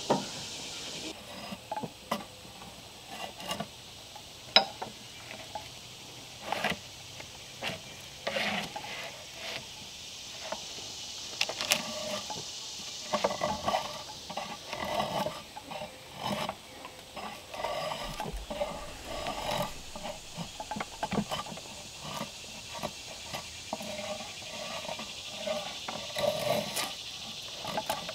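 Drawknife pulled along a log, peeling off the bark in a run of scraping strokes, sparse at first and then coming about once a second through the second half.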